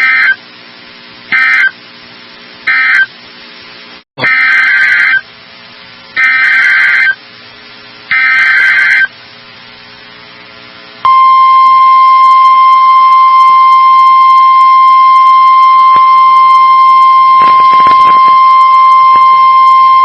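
Emergency Alert System data tones. First come three short SAME end-of-message bursts, then three longer SAME header bursts that announce the next warning. About halfway in, a steady single-pitch attention tone starts, the 1050 Hz NOAA Weather Radio alert tone, and holds for about nine seconds. A low hum sits under the gaps between the bursts.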